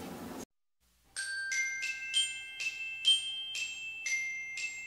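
Outro jingle: a run of bright, bell-like struck notes at changing pitches, about two or three a second, each ringing on into the next. It follows a brief silence after the background guitar music cuts off.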